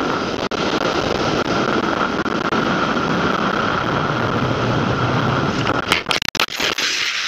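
Motorcycle running along at road speed, a steady noise with a droning tone. About six seconds in there is a quick series of knocks and scrapes as the bike crashes and goes down, and then the running noise falls away.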